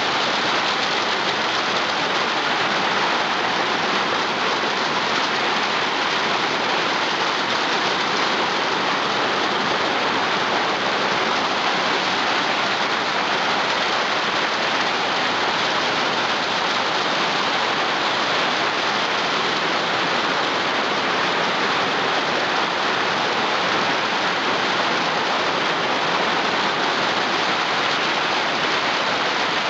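Rain falling on a tin roof, heard from underneath it: an incredibly loud, steady hiss.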